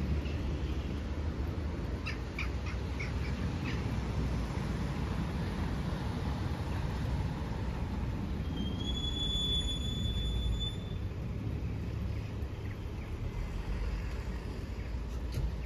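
Outdoor traffic ambience with a steady low rumble as a taxi minibus drives up and stops. A crow caws a few times about two seconds in, and a high steady squeal lasts about two seconds near the middle.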